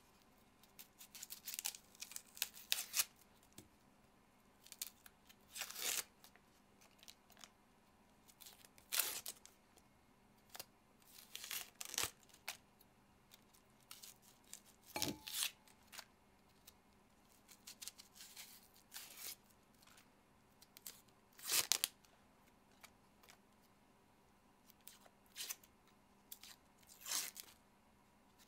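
Papery onion skins crackling and tearing as whole onions are peeled with a kitchen knife, in irregular short crackles with pauses between.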